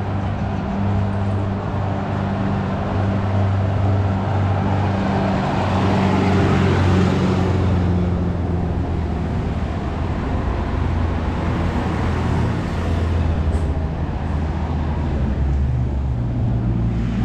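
Street traffic: car engines running with a steady low hum, and a car passing close, louder about six to eight seconds in.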